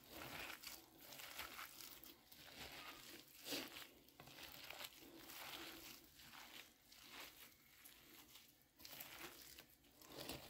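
Faint, irregular squishing and rustling of nitrile-gloved hands kneading a moist raw minced-beef filling for lumpia in a bowl.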